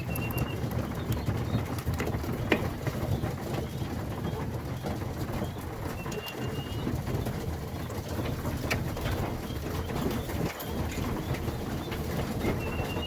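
A flock of racing pigeons cooing steadily, with scattered light clicks and a short high chirp three times.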